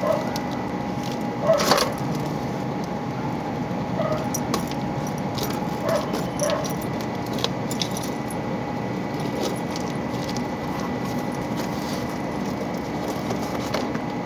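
Steady background noise with a faint steady whine, broken by scattered small metallic clicks and jingles, a louder cluster of them about a second and a half in.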